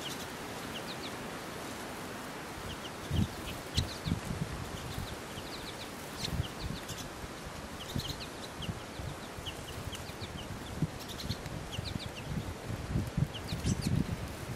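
Pine siskins giving short, high chirping calls, scattered through, over a steady outdoor hiss. Irregular low thumps come and go, more often near the end.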